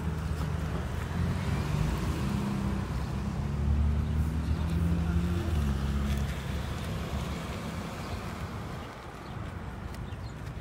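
An engine running nearby: a low, steady drone whose pitch shifts a little. It is loudest around the middle and fades off after about eight seconds.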